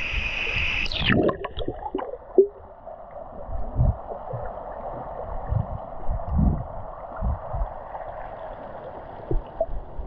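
Waterfall splashing into a pool, then a plunge under water about a second in: a rush of bubbles, then muffled underwater water noise with several low thumps from a swimmer diving.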